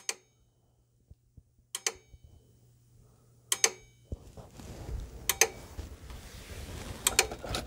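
Plug-in relay on the KITT display-car scanner controller board clicking in a steady rhythm, about one click every second and three quarters, with the controller powered from a 12-volt supply and working. A faint low hum gives way to a low rustling noise about four seconds in.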